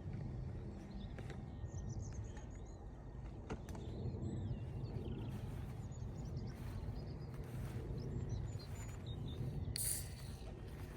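Wind rumbling on the microphone, with birds chirping faintly in the background and a few light clicks. A short, sharp rustle stands out near the end.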